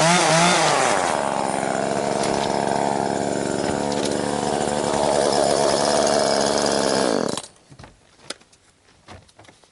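Two-stroke chainsaw revving up and down, then running steadily at a lower pitch for several seconds before it stops abruptly. A few faint clicks follow.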